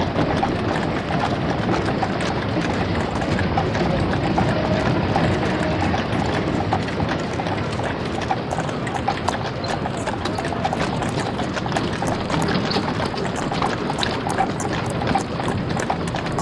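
Horse hooves clip-clopping on a paved street over a steady hubbub of street noise, with many small clicks and knocks throughout.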